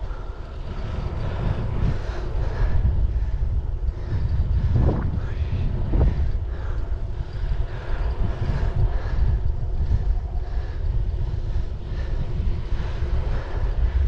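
Wind buffeting the microphone during a ride on an electric bike at speed: a steady low rumbling rush.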